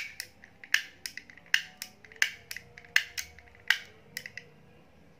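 Motex embossing label maker and its tape cartridge clicking: a run of sharp plastic clicks, a loud one about every three-quarters of a second with smaller clicks between, as the cartridge is fitted onto the tool. The clicking stops a little after four seconds in.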